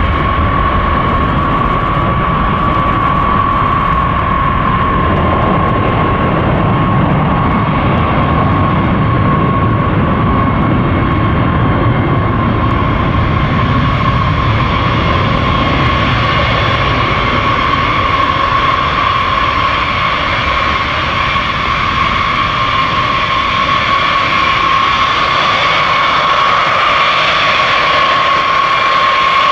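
Jet engines of B-52H Stratofortress bombers, eight TF33 turbofans each, running at high power: a loud, steady jet noise with a whine held at one pitch. A deeper rumble strengthens for several seconds in the middle.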